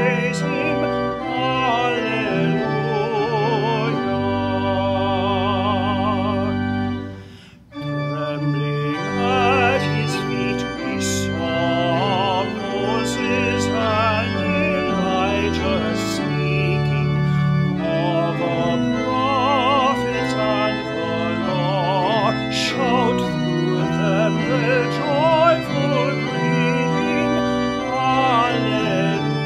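A man sings a hymn with wide vibrato, accompanied by a church organ playing full sustained chords. The music breaks off briefly about seven and a half seconds in, then goes on.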